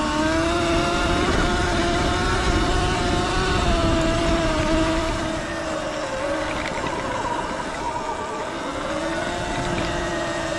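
Sur-Ron L1E electric dirt bike's motor whining under way, its pitch rising and falling with speed and dipping once before climbing again near the end, over rushing wind and tyre noise on a dirt trail.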